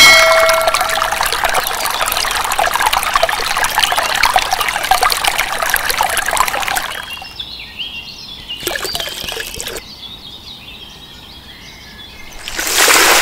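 A thin stream of water pouring from a small pipe into a miniature pool, trickling steadily for about seven seconds and then stopping. A short ringing tone sounds at the very start, and a brief rush of noise comes near the end.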